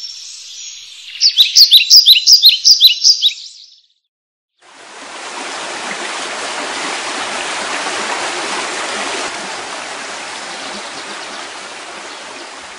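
Bird song: a quick run of loud, repeated high chirps, about four or five a second, lasting about two seconds. After a short break comes a steady rush of flowing water, which swells and then eases slightly.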